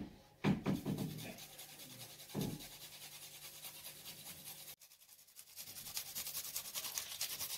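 Fresh garlic being grated on a metal box grater over a bowl of minced meat, in quick repeated scraping strokes. The strokes are densest and loudest in the last few seconds.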